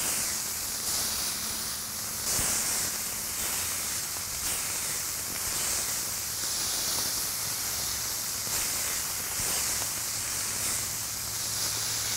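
Smashed ground-chuck burger patties sizzling on a hot flat-top griddle: a steady hiss of frying fat, with a metal spatula scraping the meat across the steel.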